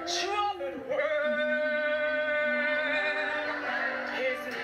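Worship music with a singing voice holding long, steady notes over an accompaniment.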